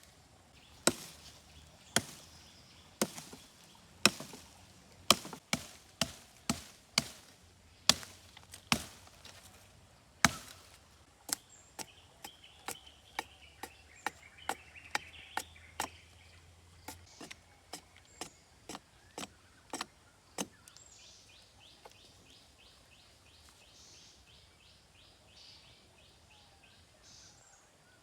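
Chopping on wood: about ten hard chops roughly a second apart, then lighter, quicker chops at about two a second for another ten seconds.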